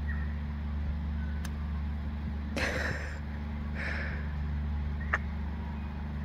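A cigarette being lit with a hand lighter: faint clicks and two short bursts of hiss about a second apart as it catches and is drawn on, over a steady low hum.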